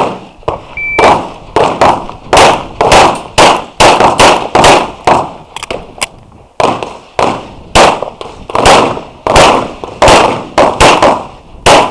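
Shot timer's short electronic start beep about a second in, then a Glock 34 9mm pistol firing a long string of rapid shots with a brief pause about six seconds in.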